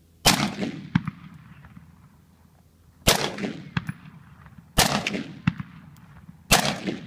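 Four single shots from a 7.5-inch-barrel AR pistol with a Troy Claymore muzzle device, spaced about one and a half to three seconds apart. Each sharp crack is followed by a long rolling echo.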